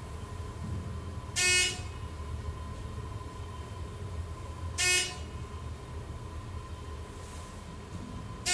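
An electronic alarm buzzer sounding short, loud, horn-like beeps about every three and a half seconds, twice plus a third at the very end, over a steady faint high-pitched tone. Likely a thyssenkrupp Synergy elevator's alarm, sounding while the elevator is out of service.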